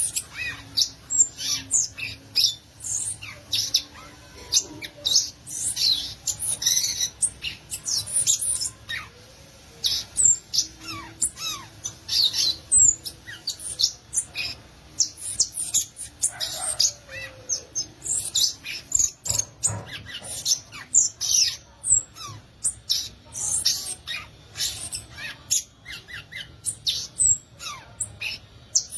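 Violaceous euphonia (gaturamo-verdadeiro) singing: a rapid, continuous run of high, sharp chips and squeaky notes with occasional quick falling slides.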